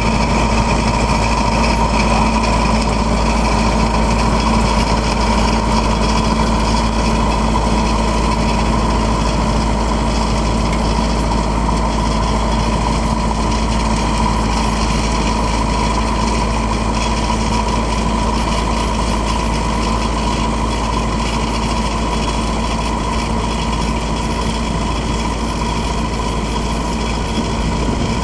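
Engine of a circular trenching machine running steadily as it drives the cutting wheel, with a constant hum and a steady high whine over it.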